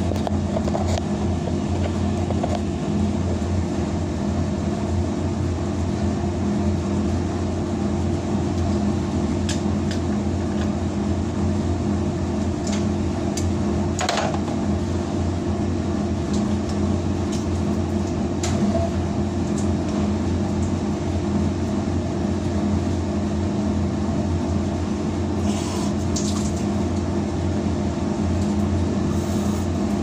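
Steady machine hum with several steady tones from commercial laundry machinery running, with a few light scattered clicks and knocks from the pipe fittings being handled.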